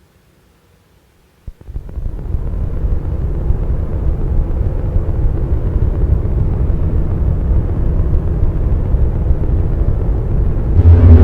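Rucci Maximal Drone synthesizer run through effects, starting after a click about a second and a half in as a low, noisy drone that swells steadily louder. Near the end it jumps louder, with a strong deep tone and a brighter band of overtones above it.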